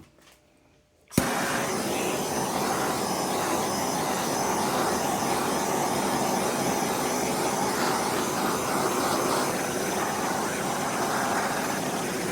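Gas torch flame burning with a steady hiss, starting suddenly about a second in and cutting off suddenly at the end. The flame is being passed over an oxidized plastic fan shroud to bring back its finish.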